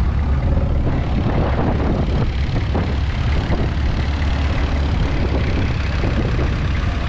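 Longtail boat engine running steadily, a loud low drone.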